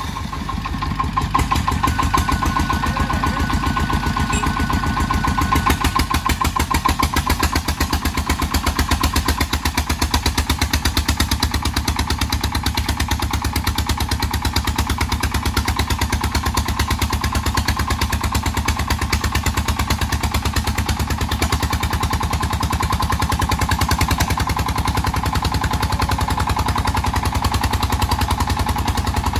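Single-cylinder diesel engine of a công nông farm truck chugging with a rapid, even beat under load as the sand-laden truck climbs a steep, muddy slope.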